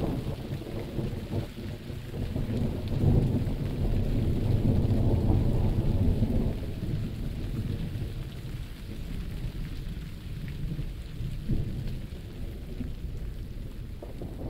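Thunderstorm: steady rain with rolling thunder. The thunder rumble swells about three seconds in, stays loudest for a few seconds, then dies away, leaving the rain.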